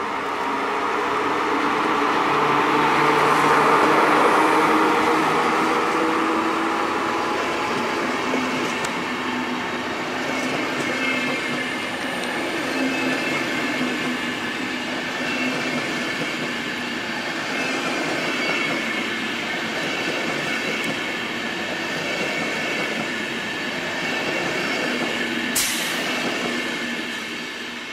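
NS Class 1700 electric locomotive and its train of Intercity coaches rolling past. It is loudest a few seconds in as the locomotive goes by, then there is a steady rumble of coach wheels on the rails with a thin high wheel squeal and one sharp click near the end, fading as the train draws away.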